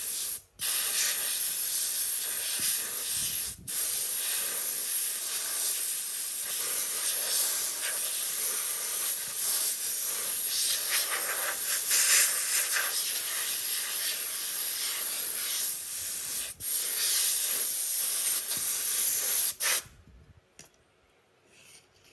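Loud, steady hiss of pressurised air or spray, broken off briefly twice and stopping about 20 seconds in.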